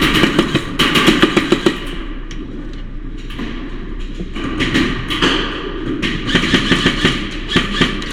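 Airsoft gun firing in several bursts of rapid shots, a quick clatter of strings with a lull in the middle.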